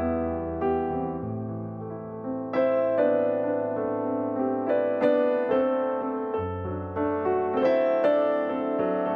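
Background music: a slow, gentle piano piece, single notes struck over held bass notes that change every few seconds.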